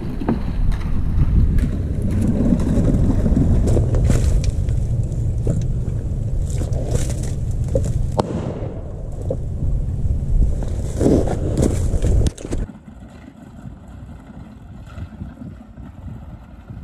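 Wind rumbling on the microphone, with scattered knocks and clatter. About twelve seconds in it cuts off suddenly to a much quieter outdoor hiss.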